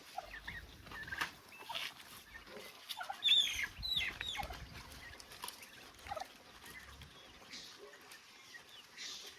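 Young poultry cheeping in short, high, falling calls, bunched about three to four seconds in, with scattered fainter calls and small knocks around them.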